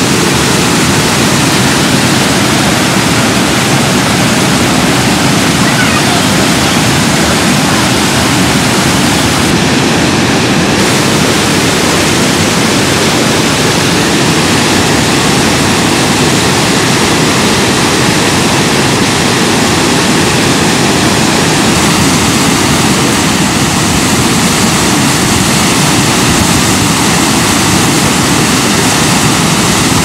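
Manavgat River waterfall: water pouring over a wide, low rock ledge, a loud, steady rushing noise that does not change.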